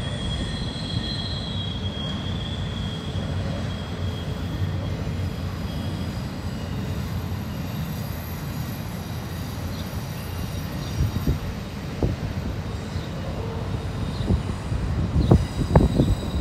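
Freight train rolling past on steel rails: a steady low rumble of wheels, with a thin high wheel squeal in the first few seconds and heavier uneven thumps near the end.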